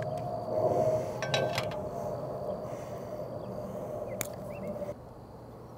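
An RJ45 crimp tool being worked on the end of a Cat5e cable: a quick cluster of light clicks and rattle about a second and a half in and a single click near four seconds in, over a steady outdoor hum that drops away about five seconds in.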